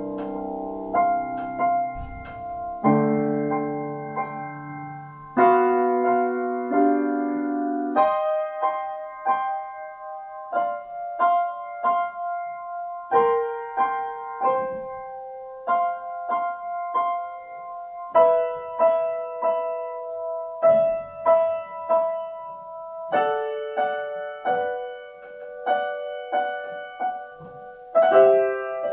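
Solo piano: held chords in the low and middle register for about the first eight seconds, then a lighter passage of short, separate notes higher up.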